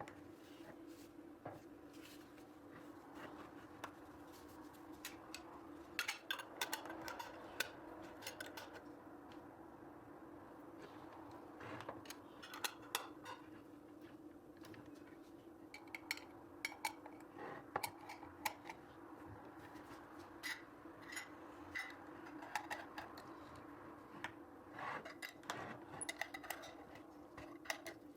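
Kitchen handling sounds: scattered clicks, clinks and scrapes of utensils and dishes, coming in clusters, over a steady low hum.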